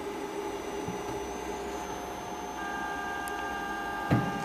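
Resin 3D printer running: a steady mechanical hum with several held tones, joined by higher steady tones about two and a half seconds in. A single brief knock sounds near the end.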